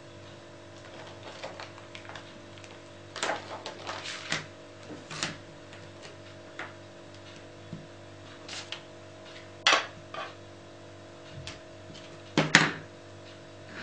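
Scattered light clicks and taps from clear rubber stamps, a clear acrylic stamping block and an ink pad being handled and set down on a cutting mat, with the two loudest knocks near ten and twelve and a half seconds in. A steady low hum runs underneath.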